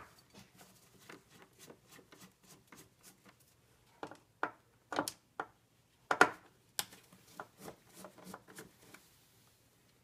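Hand screwdriver with a Torx T20 bit working the fasteners of a plastic fuse box cover: a run of small, irregular clicks and taps, with several sharper clicks from about four to seven seconds in.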